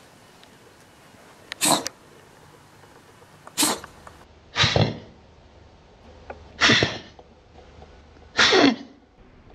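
Domestic cat coughing, five coughs a second or two apart. From about halfway on they are played slowed down, drawn out and lower in pitch.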